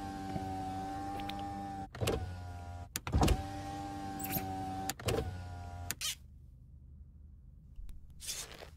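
A car's electric power window motor whines as it is run up and down over and over, with a sharp clunk each time the glass reaches the end of its travel and reverses. The whine stops about six seconds in.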